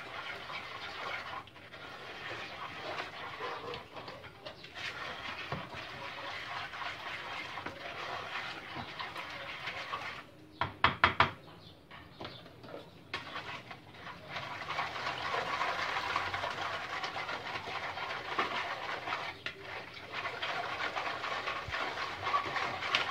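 A hand working a cement and gypsum mix with water in a bowl, a steady gritty scraping and squelching. A little before halfway the mixing pauses for a quick run of sharp knocks, the loudest sounds.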